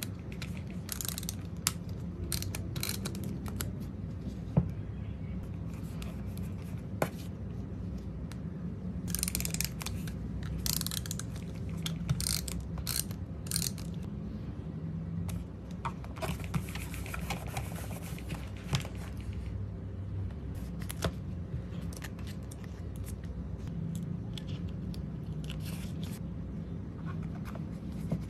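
Paper-craft sounds of journaling: paper and card being handled, scraped and pressed onto a page, with a tape runner rolled across the paper and tweezers tapping a sticker down. Many short scrapes and ticks, thickest in the middle, with a longer run of scraping after it, over a steady low hum.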